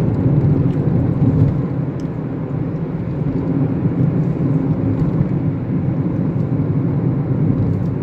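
Steady low rumble of a car's road and engine noise heard from inside the moving car's cabin, with a faint hum.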